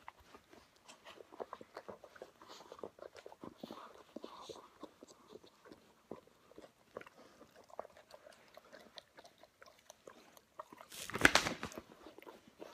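Two Weimaraners mouthing and nibbling at each other in gentle play-fighting: a steady run of small wet smacks, licks and jaw clicks. About eleven seconds in comes a louder burst of noise lasting about a second.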